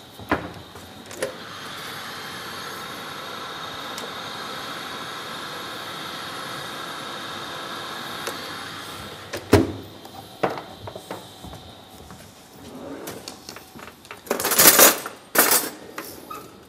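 Electric wall oven, door open, giving a steady mechanical hum for about eight seconds. A sharp knock ends it, as of the oven door shutting. Near the end come two short, loud noisy bursts.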